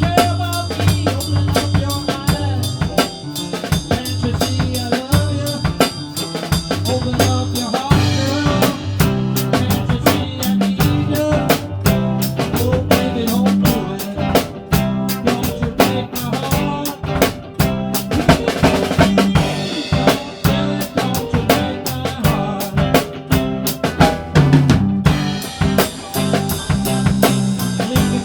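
Rock drum kit played along with a band, with snare rimshots and bass drum over bass guitar; the snare is a 5.5 x 14 purpleheart stave-segment drum.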